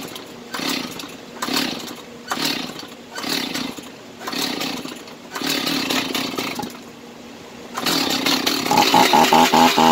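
Stihl MS 290 two-stroke chainsaw being pull-started, its engine firing in short sputtering bursts about once a second and running for about a second before dying. Music comes in near the end.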